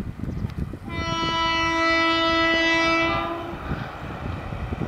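Indian Railways WAP-4E electric locomotive's horn sounding one long steady blast, starting about a second in and lasting a little over two seconds, as the express approaches at speed.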